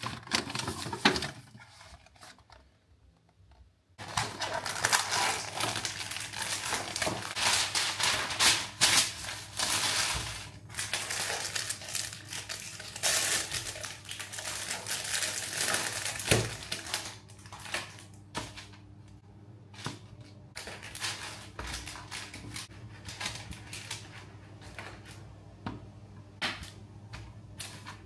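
Thin plastic packaging crinkling and crackling as a clamshell tray of cookie dough balls is unwrapped and the balls are pulled out, dense for about the first half, then thinning to scattered clicks and light taps as the dough is set on a parchment-lined baking tray. A few knocks come at the very start.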